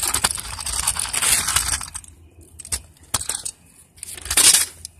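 Rustling and crunching movement noise over grass, dense for the first two seconds, then a few sharp clicks and a louder rustle near the end.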